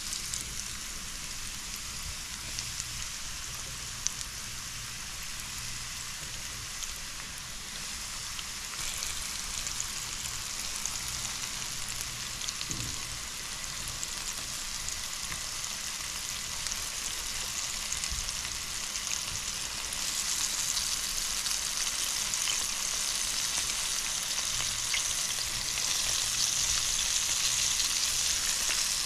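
Flour-dredged catfish nuggets frying in hot oil in a skillet, a steady sizzle that grows louder in steps in the second half as more pieces are laid into the pan.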